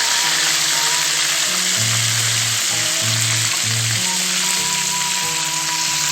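Fish frying in a pan, a steady dense sizzle, with background music playing over it: held bass notes and a thin melody.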